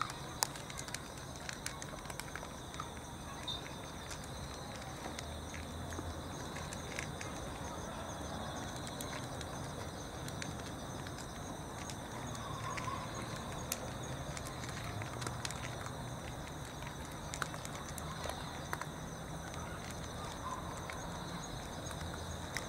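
Cats eating from plastic trays: scattered small clicks of chewing and crunching on food, over a steady outdoor background hiss with a few faint high steady tones.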